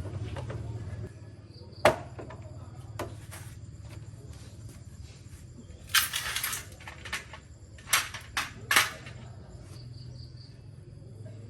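Scattered knocks and clatter: a sharp knock about two seconds in, a short rattling burst around six seconds, and three more knocks near the end, over a low steady hum and faint insect chirping.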